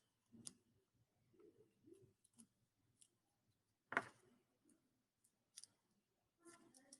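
Near silence with faint, scattered clicks and soft taps from handling a glue stick, dry leaves and paper, with one sharper click about four seconds in.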